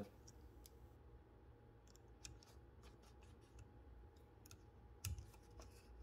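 Mostly quiet, with scattered faint small metal clicks as the paper clips on the paper bar of a 1931 Urania 7 typewriter are handled, and one louder click about five seconds in.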